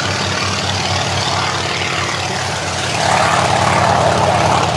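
Radial engine and propeller of a PZL-106 Kruk crop duster running at high power on its takeoff run: a steady low drone that grows louder about three seconds in.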